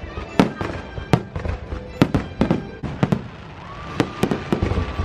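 Fireworks show: aerial shells bursting in a quick, irregular string of sharp bangs, about a dozen, over music.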